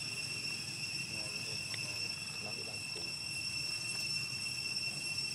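Steady, unbroken high-pitched insect drone, with a few faint short low sounds underneath.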